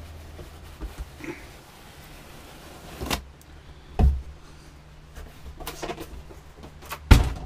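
A large cardboard box lid being slid off and set aside: a scraping slide about three seconds in, a dull thump a second later, some rustling of cardboard, and a heavier thump near the end.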